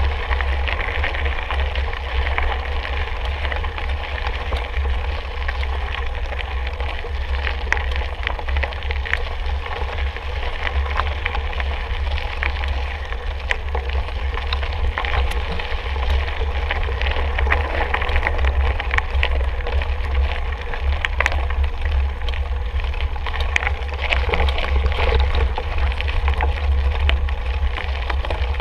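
Wind buffeting the microphone over the crunch of tyres and scattered rattling clicks from a mountain bike ridden over a rough trail.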